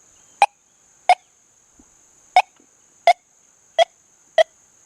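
XP Deus 2 metal detector in Gold Field program with Bird Dog mode giving six short, sharp beeps as the coil is swept back and forth over nails, signalling a clad dime buried beneath them.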